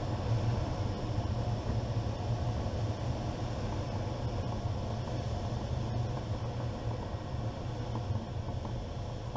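Steady rush of air over a glider's cockpit and canopy in the last of the approach and the flare, with the airbrakes out, easing off a little as the glider loses speed.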